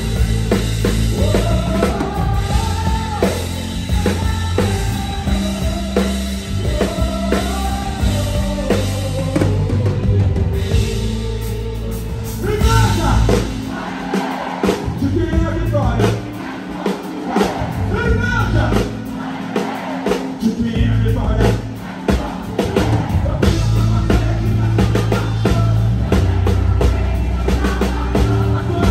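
Live gospel band playing through the stage PA: an amplified singing voice over keyboard, bass and drum kit. The heavy low beat thins out for several seconds midway, then comes back.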